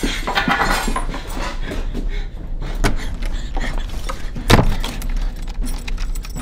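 Clattering and rattling at a door as its handle and lock are worked in a hurry, with one loud thump about four and a half seconds in.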